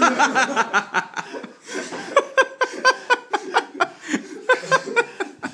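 Male laughter, a quick run of short repeated bursts.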